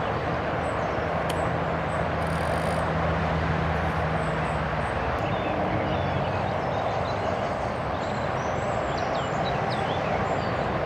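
Steady, fairly loud road traffic noise, with a low hum through roughly the first half that then stops. A few faint bird chirps come near the end.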